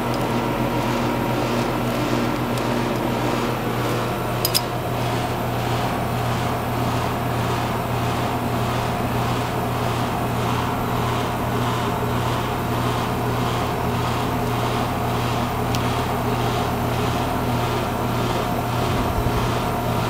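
Air-conditioning condenser unit running with a steady low hum, with two faint clicks, one about four seconds in and one near sixteen seconds.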